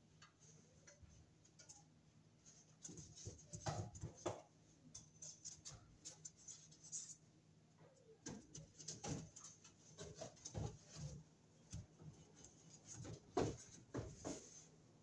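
Faint scraping, tapping and rustling of a cut drop-ceiling tile being handled and pushed up into the ceiling grid, with a few louder knocks about four seconds in and again near the end.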